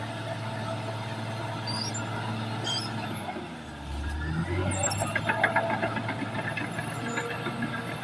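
Caterpillar D6R XL bulldozer's diesel engine running steadily; a little past halfway its note drops briefly and picks up again, and the steel tracks set in with rapid, rhythmic squealing and clanking as the machine moves.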